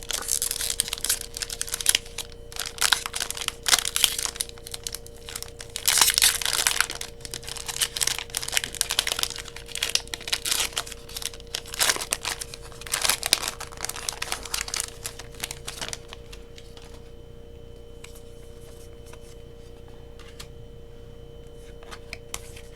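Foil wrapper of a Pokémon card booster pack crinkling and tearing as it is opened, dying away about two-thirds of the way through.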